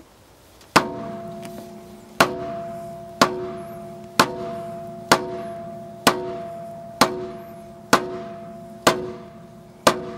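A wine bottle's base is knocked against a floor mat hung over a Land Rover Defender's bumper to work the cork out: ten sharp knocks about a second apart. Each knock is followed by a ringing tone that fades before the next one.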